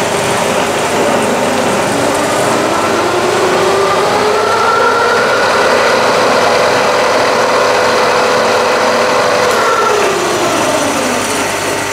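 Bridgeport milling machine's variable-speed head running. Its pitch rises as the spindle speed is turned up about three seconds in, holds steady, then falls back as the speed is turned down near the end. The owner judges the drive a bit noisy but serviceable.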